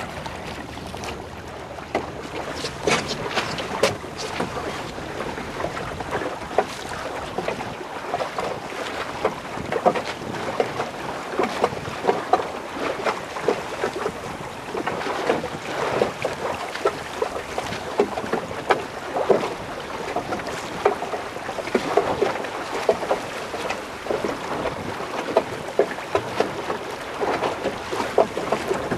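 Water slapping and splashing irregularly against a small boat's hull in choppy water, over a steady rush of wind on the microphone.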